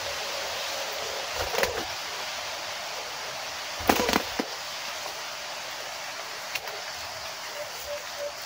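Steady hiss of forest background with a faint repeating high note. A short rustling knock comes about a second and a half in, and a louder cluster of sharp knocks or flutters about four seconds in.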